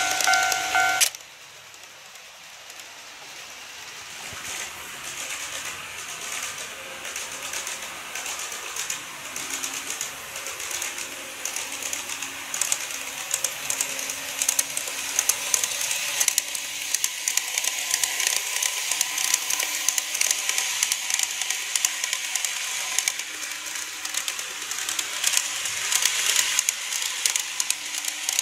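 A model level-crossing warning bell rings a repeating electronic chime and cuts off about a second in. Then KATO 381 series model trains run along the track with a fast, dense clicking of wheels on rail that grows louder as they approach. From about halfway a faint steady motor whine joins the clicking.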